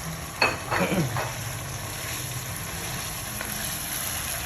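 Tomato stew base of blended tomatoes, pepper and onion frying in oil in a pan, a steady sizzle. A few short sharp sounds come about half a second to a second in.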